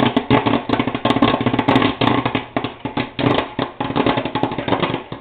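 Popcorn kernels popping fast inside an electric popcorn popper with a plastic dome, a dense run of irregular pops over the popper's steady hum.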